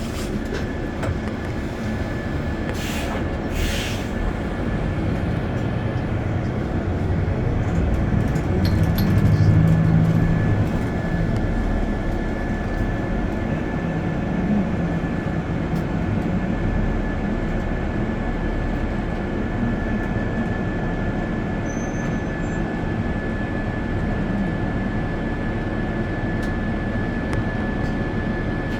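A moving bus heard from inside: steady engine and road rumble with a constant thin high whine, swelling louder about nine seconds in.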